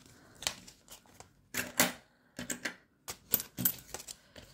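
A run of about a dozen short, irregular clicks and knocks of small objects being handled on a tabletop, such as coins and plastic boxes being picked up and set down.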